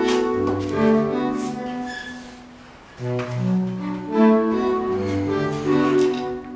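Background music played on bowed string instruments, a slow melodic phrase with a short lull a little under three seconds in before the next phrase begins.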